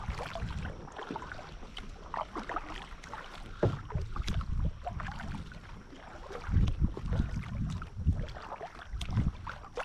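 Kayak paddle strokes dipping and splashing in lake water, with wind buffeting the microphone in low gusts a few seconds in and again later.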